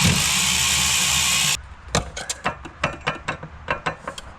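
A power tool runs loudly for about a second and a half and cuts off suddenly, followed by a string of short clicks and knocks as fasteners and parts are worked by hand.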